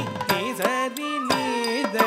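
Carnatic ensemble music for a jatiswaram: a melody line with gliding ornaments over sharp, frequent mridangam drum strokes.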